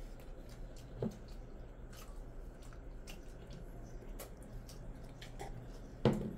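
Eating by hand: wet, squishy sounds of fingers mixing rice and curry on steel plates, with chewing and scattered soft clicks. A small knock comes about a second in and a louder short sound near the end.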